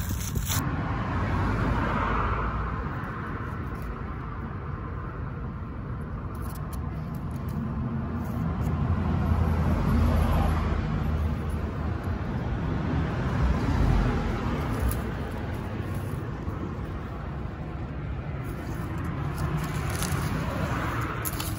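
Outdoor road traffic: a steady low rumble with vehicles swelling past every few seconds, and a few light clicks over it.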